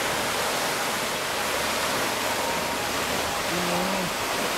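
Fountain's tall vertical water jet falling back into its pond, a steady splashing hiss.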